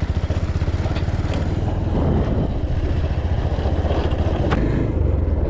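Motorcycle engine running steadily as the bike is ridden, with a fast, even firing pulse.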